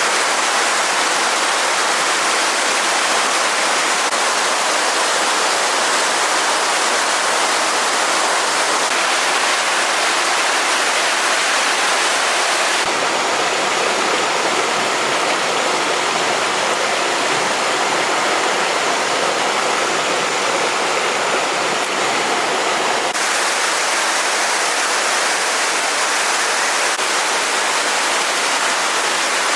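Stream water rushing, a loud, steady noise without pause. It turns a little duller for about ten seconds in the middle, then brightens again.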